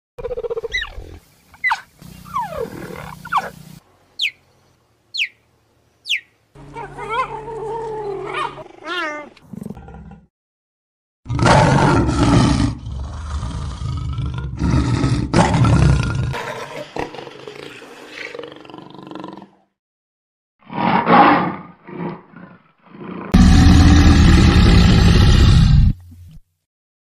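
A string of separate wild animal calls cut one after another, mostly big-cat roars and growls from lions and tigers, the loudest about a third of the way in and again near the end. Shorter high, falling calls come in the first few seconds.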